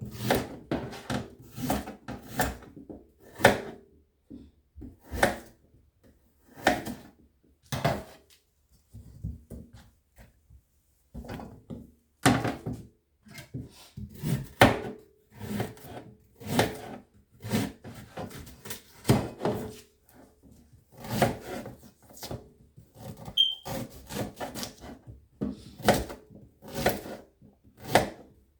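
Knife cutting ginger into small pieces on a cutting board: irregular knocks of the blade on the board, about one or two a second, with a short pause near the middle.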